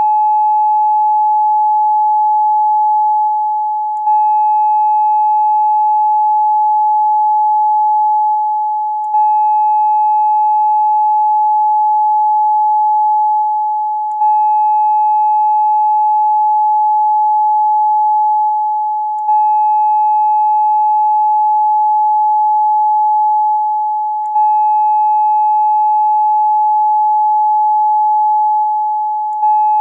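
A steady 852 Hz sine tone, the meditation tone tied to the third eye chakra, with faint overtones. It dips slightly and restarts about every five seconds as a loop.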